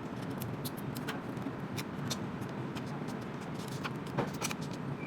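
Scattered light clicks and ticks of small parts being handled while battery adhesive is applied in a phone repair, over a steady low hum.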